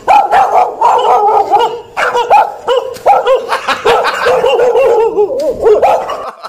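A dog barking rapidly and without letup, a string of short, high yaps.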